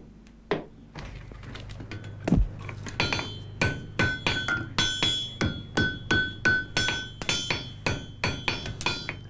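Blacksmith's hammer forging a hot horseshoe on an anvil: a few separate blows, then from about three seconds in a steady rhythm of about three strikes a second. Each strike has a metallic ring, with some blows landing on the bare anvil between those on the shoe.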